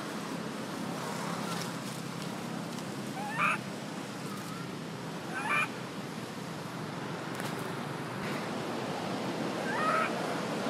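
Macaque calls: three short, rising squealing cries, two a couple of seconds apart and a third near the end, over a steady background hiss.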